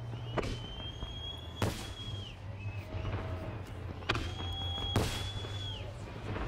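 Fireworks display: four sharp bangs of shells bursting, unevenly spaced. Two steady high whistles each last a second or two and drop off at the end.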